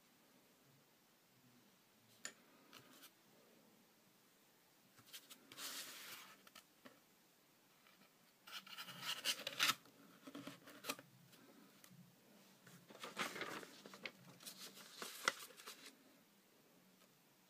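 Faint rustling and scraping of cardboard and paper being handled and slid about by hand, coming in several short bursts with a few sharp clicks.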